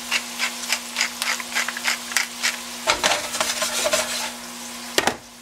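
Diced onions sizzling in butter in a stainless steel skillet, with a string of quick light taps, about three a second, for the first few seconds. Then the pan rattles on the stove grate as it is shaken, ending in one sharp knock about five seconds in.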